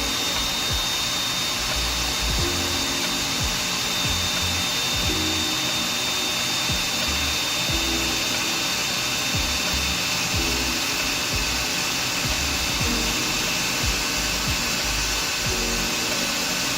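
Small electric drill or screwdriver running continuously with a steady high whine, working at a laptop part that takes a long time to give way. Background music with changing bass notes plays underneath.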